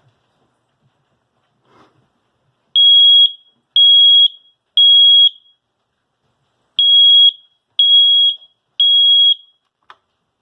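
Kidde smoke alarm sounding under its test button: two rounds of three loud, high, half-second beeps in the standard temporal-three evacuation pattern, showing the alarm works.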